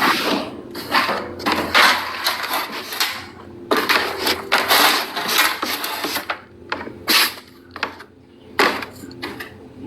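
Stiff broom sweeping in repeated scratchy strokes, about one or two a second, with a short pause a little after halfway.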